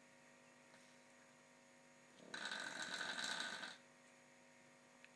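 Dog snoring: one long snore about two seconds in, lasting about a second and a half.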